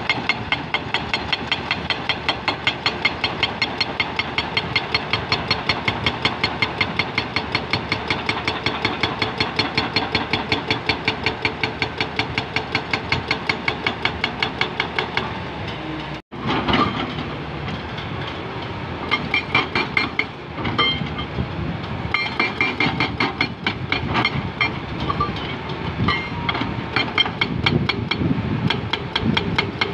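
Hydraulic excavator at work, its engine running under a steady rhythmic clanking of about three strokes a second; after a break about halfway through, the clanks turn irregular, with short high squeals among them.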